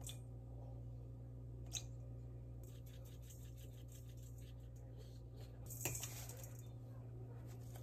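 Faint steady low hum, with a single light click about two seconds in and a short clatter about six seconds in, typical of small objects being handled in a kitchen.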